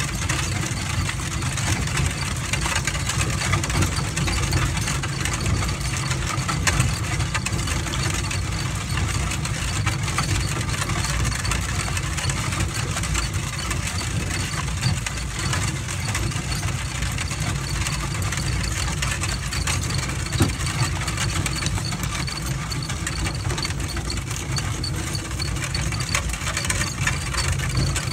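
Mule-drawn wagon rolling over a gravel road: a steady crunching rumble of the wheels, with the rattle of the trace chains and harness.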